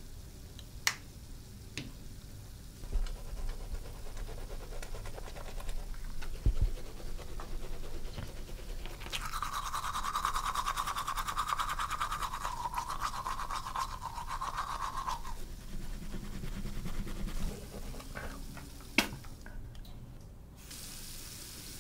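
Teeth being brushed with a toothbrush: fast, even scrubbing for about six seconds in the middle. A few sharp clicks come before it and one near the end.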